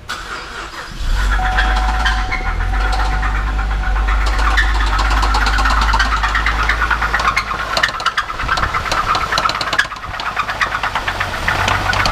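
Cadillac CTS 2.8-litre V6 starting about a second in and idling with a loud, rapid knocking. The engine ran low on oil and is blown.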